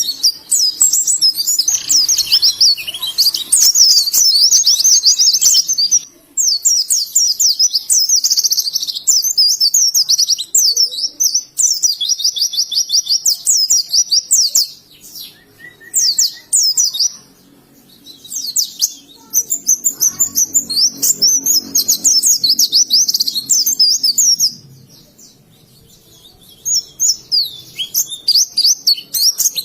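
White-eye (pleci) singing: loud, rapid, high-pitched twittering phrases of fast chirps, each several seconds long, broken by short pauses of a second or two.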